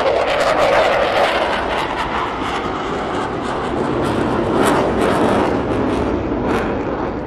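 CF-18 Hornet fighter jet flying past: loud, steady jet engine noise with scattered sharp crackles, easing slightly toward the end.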